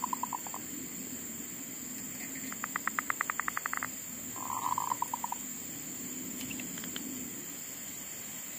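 Zebra dove (perkutut) calling in three short bursts of rapid staccato notes, each a quick train of even pulses, with the longest in the middle. A steady high hiss runs underneath.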